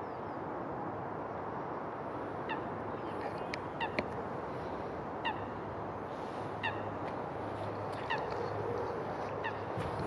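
Geese honking across a lake: about ten short calls at irregular intervals, starting a couple of seconds in, over a steady background hiss.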